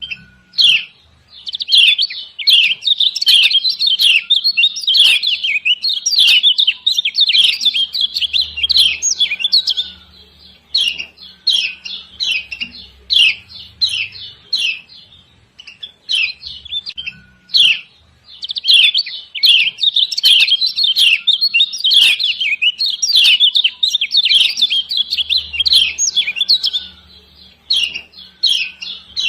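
Kecial kuning (Lombok yellow white-eye) giving rapid 'ciak ciak' chirps, a female's call used as a lure to set other birds singing. It comes in long dense runs of high chirps, with a thinner, slower stretch in the middle.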